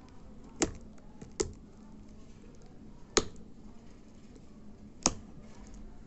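Fingernail picking at the clear plastic shrink-wrap on a small cardboard product box, making four sharp, separate clicks as it starts to tear the wrap open.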